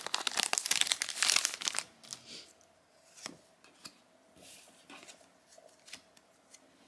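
Trading-card booster pack wrapper being torn open and crinkled, loud for the first two seconds, then quiet handling with a few light clicks and taps.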